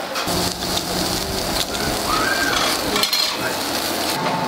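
Metal kebab skewers clinking as they are handled and turned on a charcoal grill, over a steady noisy hiss.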